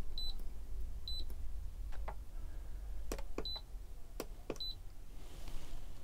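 Alde 3020 heating control panel's touchscreen beeping as its on-screen buttons are pressed: four short high beeps at uneven intervals, each confirming a touch, with a few faint clicks between them.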